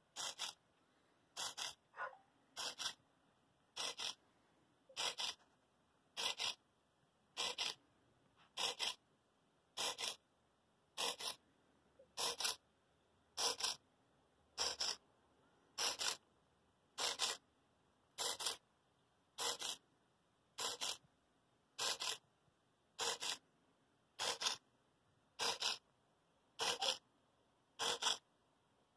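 Blue micro hobby servo whirring in short bursts about every 1.2 seconds as its plastic gears sweep its arm back and forth, pushing the Stirling engine's displacer rod up and down under Arduino control.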